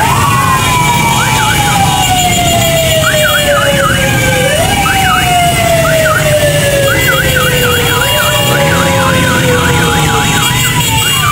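Several sirens sounding at once over the low rumble of motorcycle engines: one tone slides slowly downward and jumps back up about every four seconds, while others warble rapidly up and down.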